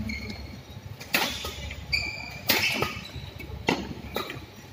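Badminton rackets striking a shuttlecock in a doubles rally, about five sharp hits spaced under a second apart, with a short squeak of court shoes.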